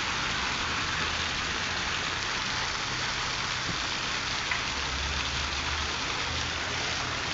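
Heavy rain falling steadily on a flooded street and pavement, with water pouring off a roof edge and splashing onto the ground: an even, unbroken hiss.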